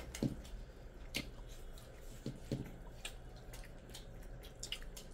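Hands kneading rice and curry on metal plates, making soft wet squishing and smacking sounds, with scattered short clicks and a few brief low thuds.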